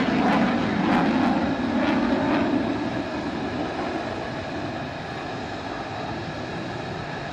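Jet engine of a parked F-35 running: a steady high turbine whine over a rushing noise, louder for the first two to three seconds, then steadier and a little quieter.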